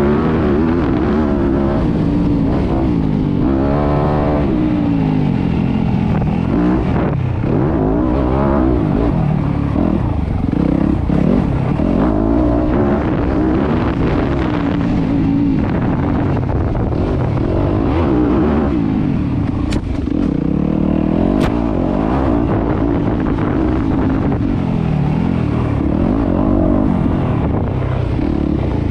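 Yamaha YZ250F 250 cc four-stroke single-cylinder motocross engine being ridden hard, its pitch constantly climbing and dropping with the throttle. Two brief sharp clicks come a little past two-thirds of the way through.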